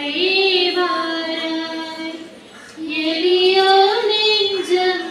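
Women singing a slow unaccompanied song into microphones, in long held notes, with a short break about two and a half seconds in before the next phrase.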